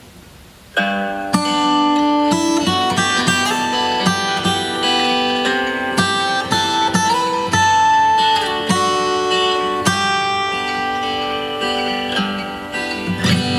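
Steel-string acoustic guitar fingerpicked, with a flute playing long held melody notes over it. The music begins about a second in.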